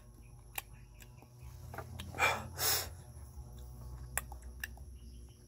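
A man breathes out or sniffs in two short, noisy breaths about two seconds in, over a faint low rumble.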